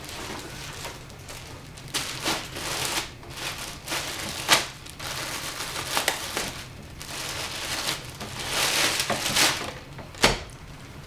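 Clear plastic packaging bag crinkling and rustling as clothing is pulled out of it and unfolded, with a few sharp crackles.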